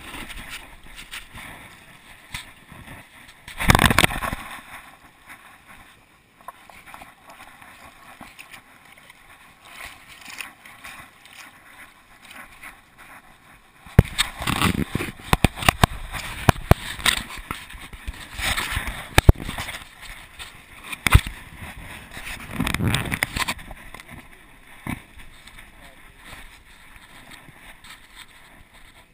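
Rubbing, knocking and clicking of a camera strapped to a moving dog, in irregular bursts: one about four seconds in, then a busy run of sharp clicks and scuffs in the middle of the stretch.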